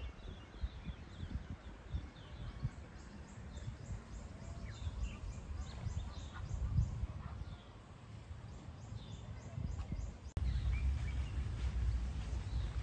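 Several birds chirping and calling, with a fast run of high chirps through the middle, over a steady low rumble. About ten seconds in, the rumble suddenly becomes louder.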